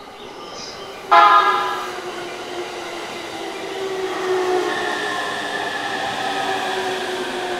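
Commuter electric train sounding a short, loud horn blast about a second in, then running in alongside the platform with wheel-on-rail noise and a few steady whining tones that slowly fall in pitch.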